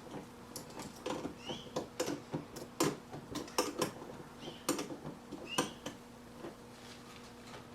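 Two 7/16-inch wrenches clinking and tapping against each other and the stainless steel lock nut and bolt while a trailer door hinge is tightened. The clicks are irregular, with a couple of brief squeaks.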